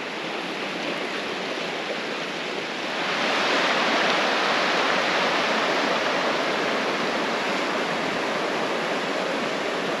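Shallow rocky creek rushing over stones and small riffles: a steady rush of water that grows louder about three seconds in.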